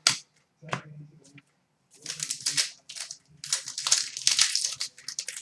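Trading cards and their pack being handled: a couple of light taps, then several bursts of crinkling and rustling.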